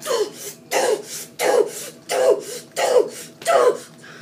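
A child's voice making short, breathy vocal bursts, about six of them in a steady rhythm, each falling in pitch: sound effects for swinging toy lightsabers.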